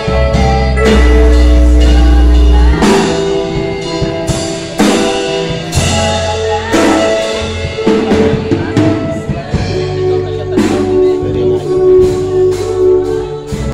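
Live band music over loudspeakers: drum kit beats with heavy bass under held chords, and a little singing. It cuts off sharply at the very end.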